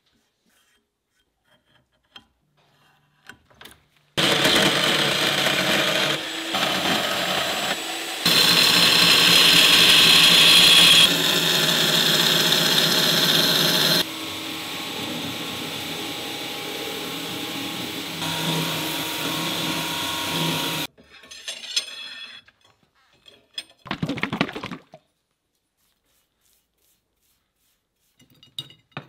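Electric belt grinder running and grinding a steel blade, loud and steady, starting about four seconds in and stopping suddenly after about seventeen seconds, its level jumping up and down abruptly several times along the way. Scattered light handling sounds and a short scrape follow.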